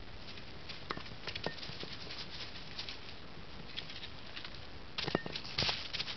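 Crackling and rustling of steps on frost-stiff grass and dry fallen leaves, with scattered small clicks. The crunching gets louder and busier about five seconds in.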